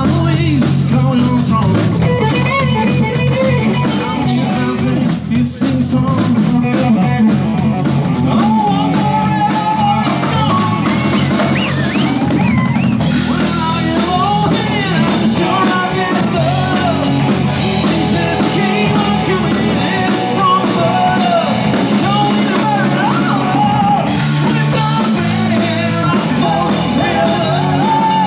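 Live band music: a drum kit and an electric bass keep a steady groove, with a guitar-like melodic line wavering above.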